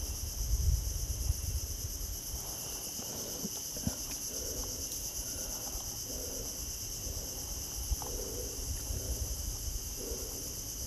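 A steady chorus of insects calling in several high, unbroken bands, with a few faint clicks and knocks of fish and pliers being handled close by.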